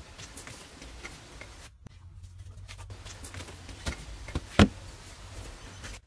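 Light knocks and steps on packed earth, then one loud, sharp knock a little past halfway as a flat stone slab is set down on the dirt floor of a dug pit.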